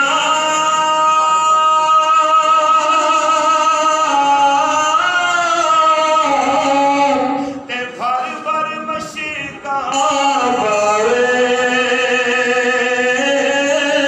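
A man singing verse in long, drawn-out melodic notes into a microphone, his voice sliding from pitch to pitch, with a short break about halfway through.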